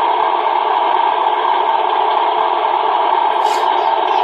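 Beier USM-RC-2 sound module playing a simulated truck diesel engine through the RC truck's speaker, running steadily with no change in pitch. A faint tick comes about three and a half seconds in.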